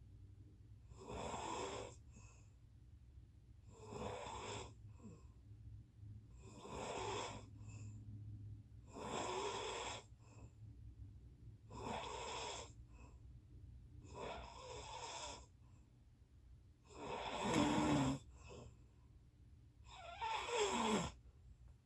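Loud snoring, one snore about every two and a half to three seconds, eight in all. The last two are the loudest, each with a pitch that slides downward.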